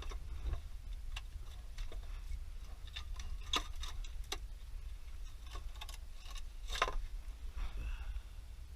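Light clicks and taps at an uneven pace, with the loudest about three and a half and seven seconds in, from hand tools and parts being handled while working on a Crown Victoria's rear differential. A low steady rumble runs underneath.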